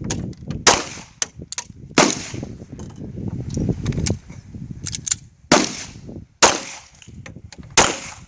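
9mm pistol shots on a firing range: about half a dozen loud shots at uneven intervals, with fainter shots in between.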